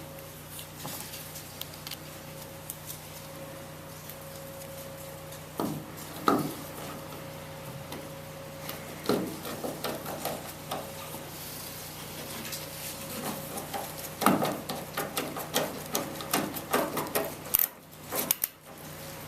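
Tail light mounting screws being driven in and snugged up by hand: irregular scraping and clicks of tool on screw and plastic housing, sparse at first and coming thick and fast in the second half.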